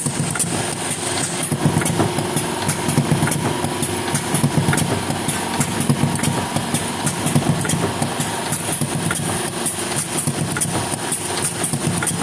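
Engine of a GOLDONE Speed 15 machine running steadily, with many small irregular clicks over the hum.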